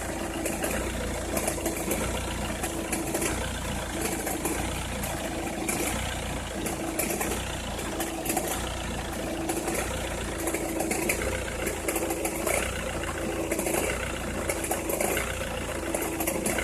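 Opel Meriva engine idling cold, with a regular pulsing and scattered crackling clicks. The crackling is heard only with the engine cold or at very low revs and stops once it is warm.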